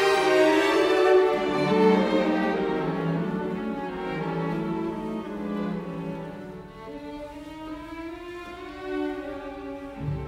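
String music on violin and cello, playing slow held notes.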